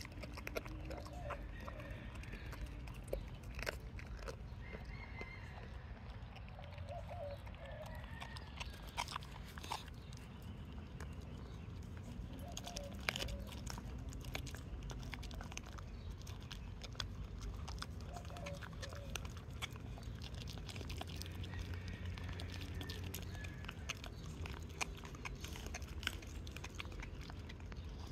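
A dog chewing and crunching a raw chicken foot, with irregular sharp crunches of small bones.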